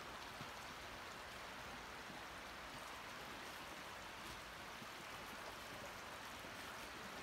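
Faint, steady rushing of Cedar Creek's flowing water.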